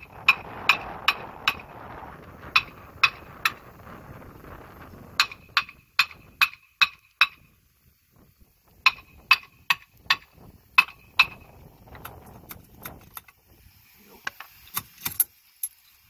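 Hammer striking a tractor axle's steel wheel hub: quick runs of sharp, ringing metal-on-metal blows, about three a second, with lighter taps near the end. The hub is being knocked loose to get at the wheel bearing and its races.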